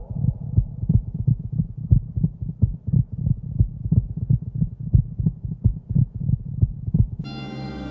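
Heartbeat sound effect: a steady run of low thumps. Sustained synthesizer music takes over near the end.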